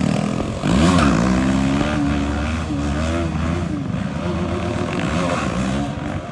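Stunt motorcycle engines running, revving up and down in repeated rises and falls over a steady low drone.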